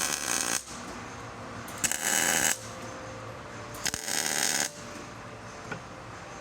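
Robotic MIG welder striking short arc bursts, a crackling sizzle lasting under a second each time, about three times roughly two seconds apart, as it re-welds over spotty welds on steel pins. A steady low machine hum runs beneath.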